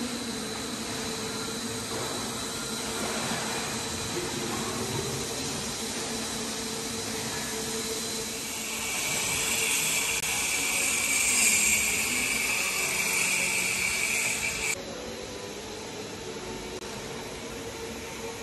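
Building-site machine noise: a steady hum and hiss, with a louder high hissing of a power tool from about nine seconds in that stops abruptly about fifteen seconds in.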